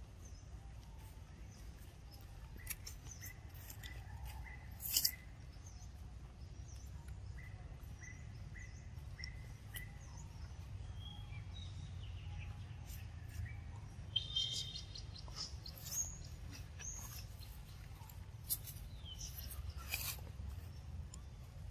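Outdoor ambience: a bird repeats a short chirp about two to three times a second in two runs, with a brief higher-pitched call about two-thirds of the way through. Scattered sharp clicks and rustles sound throughout.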